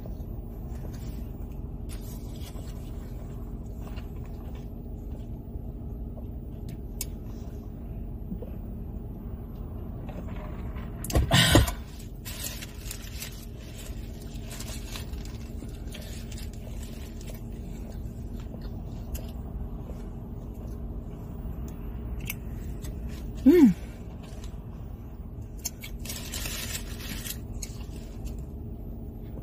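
Steady low rumble of a car's engine running, heard from inside the cabin, with faint rustling and clicks. A loud sound lasting about a second comes midway through, and a short falling tone comes later.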